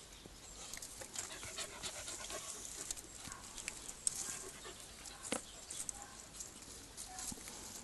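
Rottweiler puppies panting, with faint scattered clicks and scrapes of paws on gravel; one sharper click about five seconds in.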